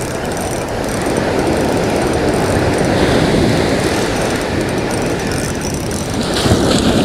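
Loud steady rush of breaking surf with wind rumbling on the microphone.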